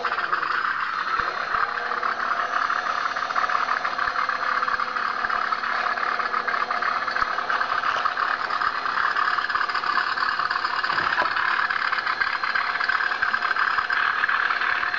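ParkZone Bf 109G RC model plane's electric motor and propeller running steadily on the ground, a constant whirring buzz.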